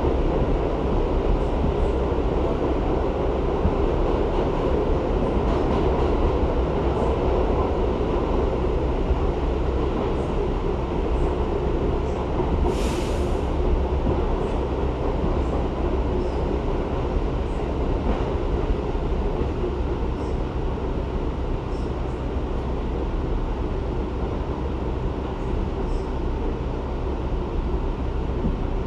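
R62A subway car in motion, heard from inside the car: a steady rumble of wheels on rail with the car body rattling. About halfway through there is a brief high hiss.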